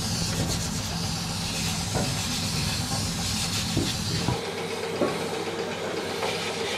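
Compressed-air paint spray gun hissing steadily as it sprays a sewing machine body, over a steady low hum. The hum stops and the sound changes a little over four seconds in.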